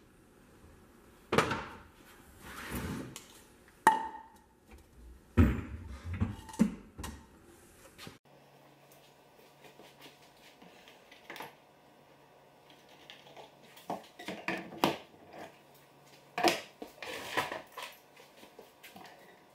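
Wooden cabinet doors being swung and knocked shut, several sharp knocks about a second or two apart. After a cut, a low hum sets in under scattered clacks and knocks of wood and tools being handled at a pocket-hole jig.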